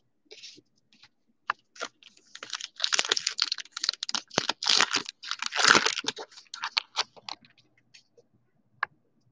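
Foil trading-card pack wrapper being torn open and crinkled by hand, a dense crackle through the middle few seconds. Scattered sharp clicks of the cards being handled come before and after it.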